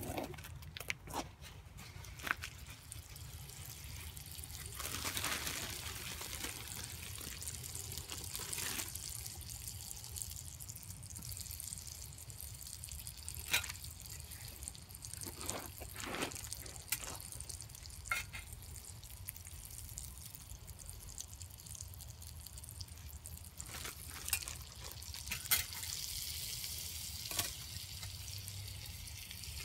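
Butter and bread frying in a pan set on glowing campfire embers: a soft sizzling hiss that swells twice, with scattered sharp pops.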